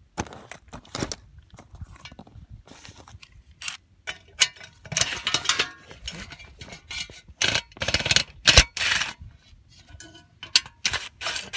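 Irregular clicks, clinks and scrapes of hand-held tools and small metal furnace parts, mixed with rustling as the phone rubs against clothing. The rustling bursts are loudest about five seconds in and again around eight to nine seconds in, with one sharp click among them.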